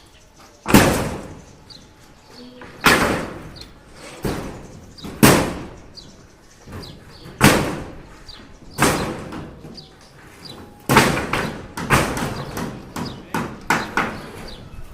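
Construction work: a run of loud, heavy knocks, about one every one to two seconds and coming faster near the end, each dying away over about half a second.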